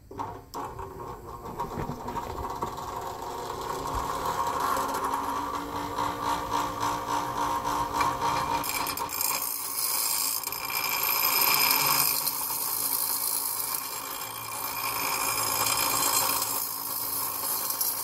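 Bench grinder running, a steady motor whine, with a harsher hissing grind that comes and goes from about halfway through.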